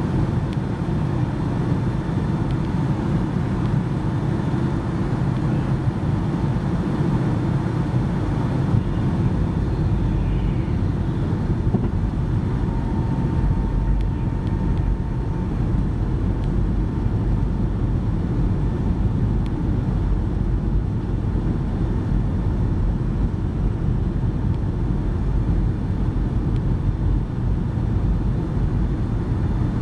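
Steady cabin noise inside a Boeing 757-200 on approach: an even rumble of the engines and airflow, with a faint steady whine above it.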